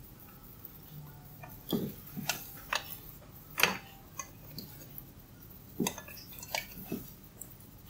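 Hair cracking during a head massage: tufts of hair are gripped and tugged sharply against the scalp, giving about ten crisp, irregularly spaced cracks, the loudest a little past the middle.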